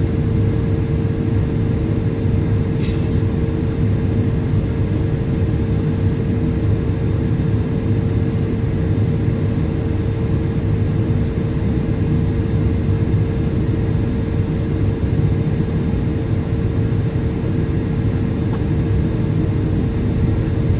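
Cabin noise of a Boeing 777-200ER on descent, heard at a window seat beside its GE90 engine. It is a loud, steady airflow and engine rush with a constant hum standing out in it.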